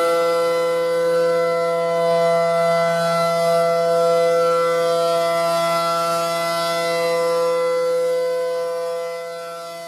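Outdoor tornado warning siren sounding a steady chord-like tone with no rise or fall in pitch, growing fainter near the end.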